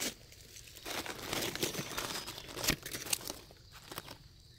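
Dry fallen leaves on the forest floor crackling and rustling in quick, irregular crunches.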